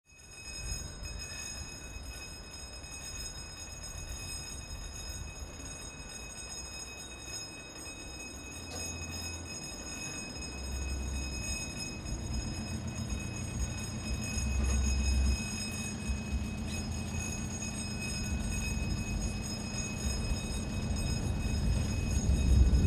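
Warning bells at a lowered bridge crossing, ringing steadily with several high tones, while cars pass on the road with low rumbles that come and go. The sound fades in from silence and grows louder toward the end.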